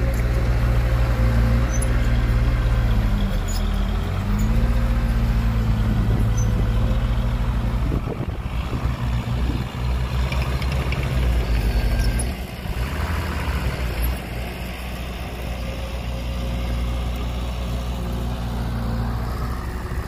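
Heavy diesel engine running, its pitch dipping and recovering about three to four seconds in. A short burst of noise comes about eight seconds in, and the engine settles to a lower, quieter note from about twelve seconds.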